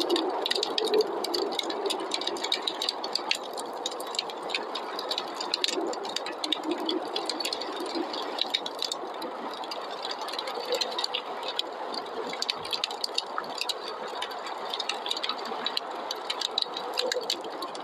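Wood fire crackling in a fireplace with many quick small pops, over the steady rush of snowstorm wind.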